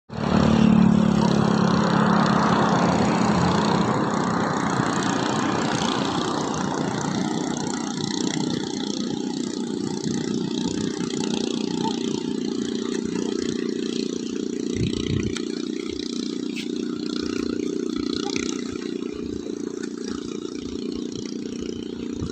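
Small boat's engine running fast with a steady drone, over a rushing haze of water and wind noise. It is loudest in the first few seconds and eases off slowly after that.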